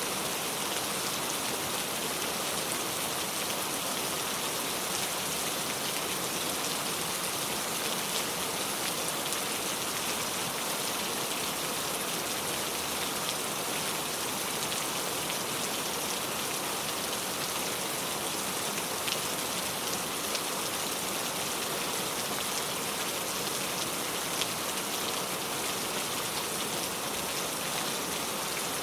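Steady rain falling, an even hiss with a few louder single drop ticks.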